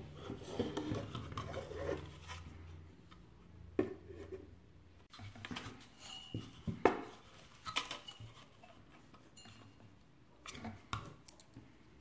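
A Gigabyte GTX 640 graphics card and its plastic fan shroud being handled and fitted together, with a small screwdriver: scattered clicks, taps and rustles of plastic and metal, the sharpest knocks about four and seven seconds in.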